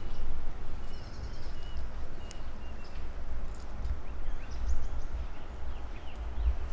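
Wind buffeting the microphone in an uneven low rumble, with a bird giving short, high chirps about once a second and a few more calls near the end.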